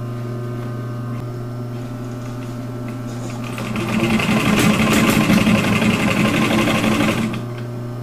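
Industrial sewing machine stitching through layered nylon seatbelt webbing. The machine hums steadily, then about three and a half seconds in it runs a fast stretch of stitching for roughly four seconds before stopping.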